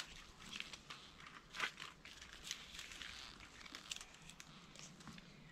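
Faint rustling and crinkling with scattered small clicks, the sharpest about a second and a half in: hammock suspension webbing being handled and fitted around a pine trunk.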